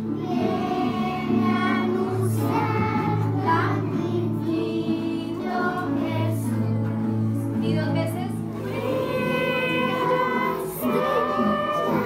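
A group of children singing a song together, accompanied by several strummed acoustic guitars.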